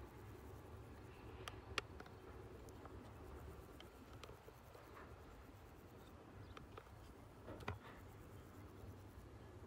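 Near silence: a faint low rumble of background noise, broken by a few soft clicks, the sharpest about two seconds in and another near the end.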